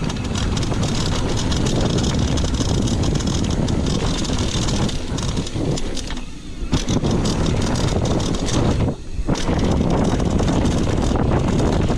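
Mountain bike riding fast down a dirt trail: wind buffeting the microphone, with tyres rolling over dirt and the bike rattling over bumps. The noise drops briefly twice, about six seconds in and again about nine seconds in.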